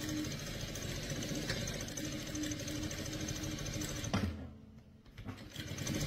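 Siruba industrial sewing machine stitching at a steady, fast rate, stopping abruptly about four seconds in and starting up again near the end.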